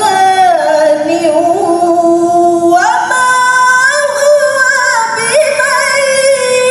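A woman reciting the Qur'an in melodic tilawah style into a microphone, holding long, ornamented notes. About three seconds in her voice rises to a higher held phrase.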